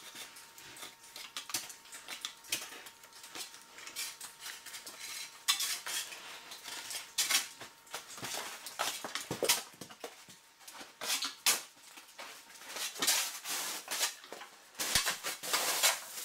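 Irregular sharp clinks and crunches of a climber's ice axe and boots on ice, growing denser and louder in the second half.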